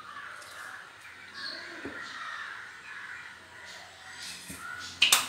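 Birds calling harshly several times in the background, then a single sharp clink about five seconds in.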